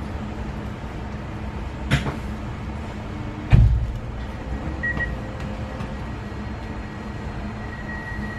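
Inside a standing Newag Impuls 2 electric multiple unit: the train's equipment hums steadily. A sharp click comes about two seconds in and a heavier thump a second and a half later. A thin high steady tone sounds briefly about five seconds in and returns near the end.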